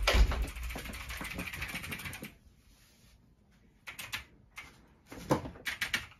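A low thump, then rapid clacking on a computer keyboard for about two seconds, stopping suddenly; after a pause come a few scattered keystroke clicks near the end.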